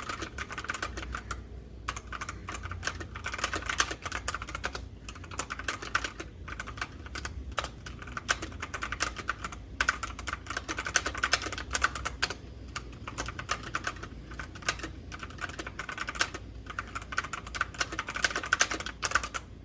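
Continuous typing on a Kreo Hive mechanical keyboard with brown (tactile) switches: rapid runs of keystrokes, each a sharp clack, broken by short pauses every couple of seconds.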